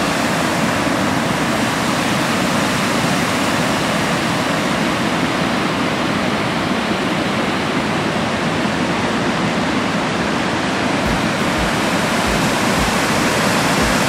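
Water pouring over a dam's concrete spillway: a loud, steady rush heard from right at the crest.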